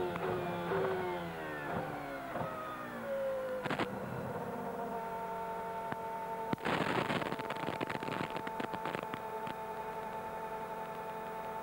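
McLaren-Mercedes V10 Formula One engine heard onboard. Its revs fall in steps through several downshifts, with short throttle blips. It then holds a steady pitch at low speed entering the pit lane, with a burst of crackling and rattling from about seven to nine seconds in.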